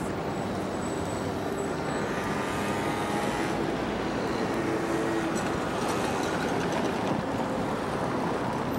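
Steady city traffic noise from cars and motor scooters passing on a busy square, a continuous rumble and hiss with no break.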